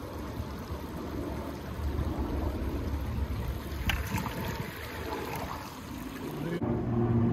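Steady outdoor rumbling noise with one short click about four seconds in. Near the end it changes abruptly to a steady low motor hum.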